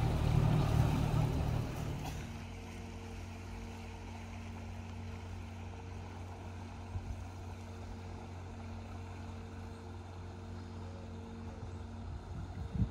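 A motor cruiser's engine running steadily at slow speed, heard as a low, even hum. The first two seconds are a louder, noisier mix, and there is a short knock near the end.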